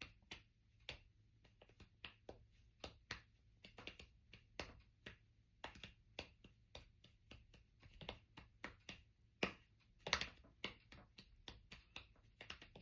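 Faint, quick clicks or taps, several a second in an uneven pattern, with a couple of louder ones about three-quarters of the way through.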